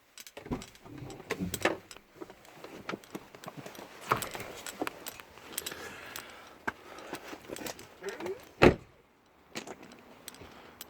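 Handling clatter of a person getting out of a parked car: scattered clicks and rustles with keys jangling, and one loud thump a little under nine seconds in.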